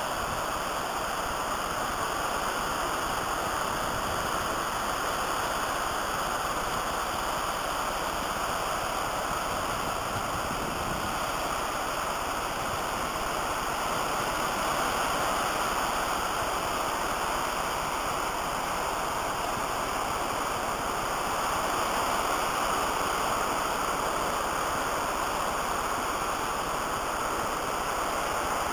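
Surf washing onto a sandy beach, heard as a steady, even rushing hiss with no separate wave crashes standing out.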